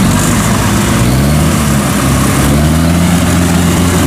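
Engine of a small tracked farm machine running under load as its tracks churn through deep mud, its note rising about a second in and then holding steady.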